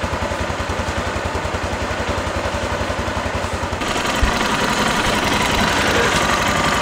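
Bashan Storm 250cc motorcycle's single-cylinder engine idling with a steady, rapid exhaust pulse, running through an exhaust with its catalytic converter gutted. About four seconds in the sound changes abruptly and becomes a little louder.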